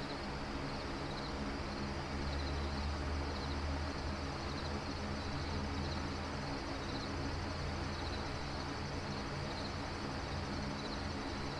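Ambient soundscape: a steady low rumble and hiss, with a short high chirp like a cricket repeating about every second and a half.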